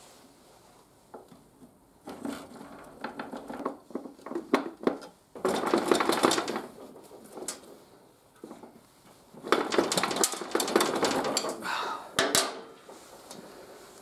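Steel rear axle of a Daelim VS 125 motorcycle being slid out through the swingarm and wheel hub: irregular metallic scraping and clinking, with two longer, louder bursts in the middle and a sharp click near the end.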